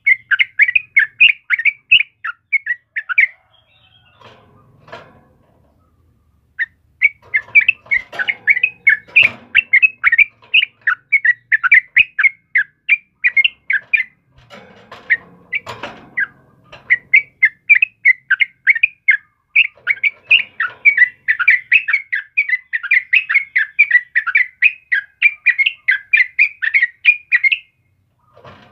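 Yellow-vented bulbul singing: long runs of rapid, short chattering notes, broken by two pauses of a few seconds, one a few seconds in and one about halfway.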